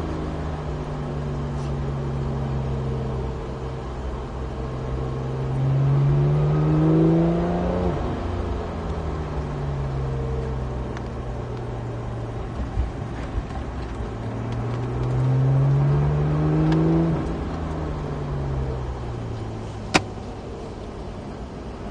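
Porsche 911 991.1 GT3's naturally aspirated 3.8-litre flat-six, heard from inside the cabin while lapping. Twice the engine note climbs under acceleration and then drops sharply, about eight and seventeen seconds in, over a steady low road rumble. A single sharp click comes near the end.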